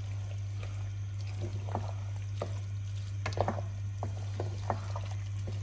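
Wooden spatula stirring thick, wet chickpeas, mashed potato and gravy in a non-stick pot: irregular soft squelches and scrapes against the pan, over a steady low hum.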